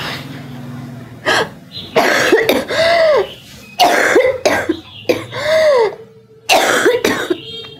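A sick woman coughing in repeated harsh fits, about five bursts with strained, voiced catches between them.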